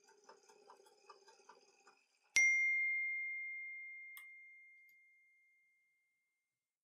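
A single bright bell-like chime struck about two seconds in, ringing on one clear tone and fading away over about three seconds. Faint light rapid ticking comes just before it.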